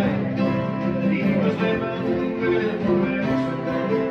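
Acoustic bluegrass jam band playing a song in the key of C, with guitar and other plucked string instruments.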